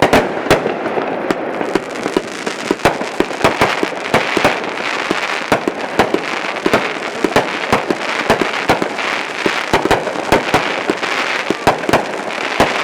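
Consumer firework 'Maximum Drama' firing: many sharp bangs in quick, irregular succession, several a second, over a steady crackle of bursting shells.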